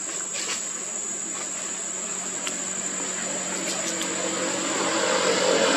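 Steady high-pitched insect drone, with a motor growing louder near the end.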